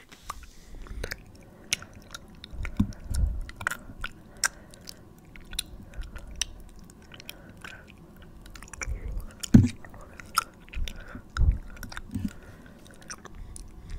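Close-miked mouth sounds and chewing: irregular wet clicks and smacks, with a few louder soft thumps of the jaw.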